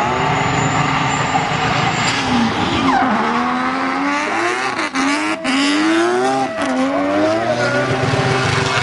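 Drift car's engine revving hard, its pitch climbing and falling again and again as the throttle is worked through a slide, over the noise of the tyres spinning and screeching sideways. The sound drops out briefly a few times about halfway through.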